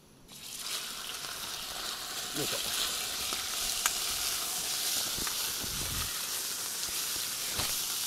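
Sliced meat sizzling as it drops into hot oil in a wok, the sizzle starting as it lands and building to a steady fry. A metal ladle stirs the meat, with a few sharp clicks against the wok.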